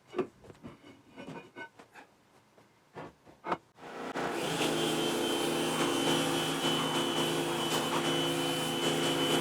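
A few scattered clicks and knocks, then about four seconds in a small Harbor Freight pressure washer starts and runs steadily, a motor hum with a thin high tone over it.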